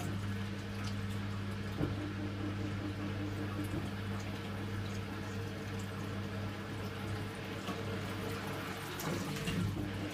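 Samsung front-loading washing machine on a towels cycle: water sloshing as the drum turns the wet towels, over a steady low hum.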